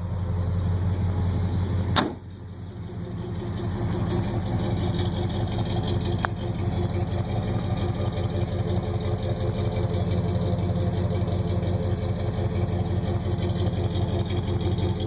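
International 1210 truck's engine idling steadily through chrome headers and a Flowmaster exhaust. A sharp click about two seconds in is followed by a brief dip in the sound, which then builds back to the steady idle.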